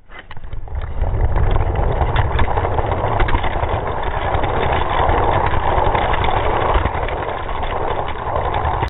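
Slowed-down sound of die-cast toy cars rolling along plastic track: a steady, low, rattling rumble that builds over the first second and cuts off suddenly at the end.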